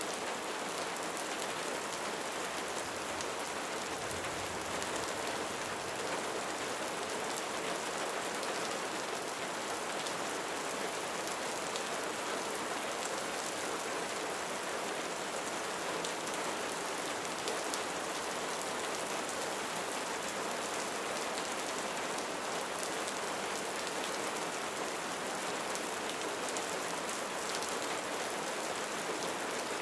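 Steady rain falling on a roof, an even, unbroken patter of drops.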